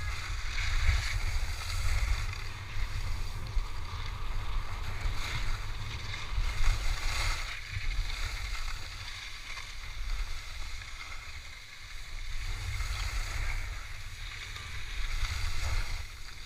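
Wind buffeting the microphone of a camera carried by a skier on the move, a gusting low rumble, over the steady hiss of skis sliding on groomed snow.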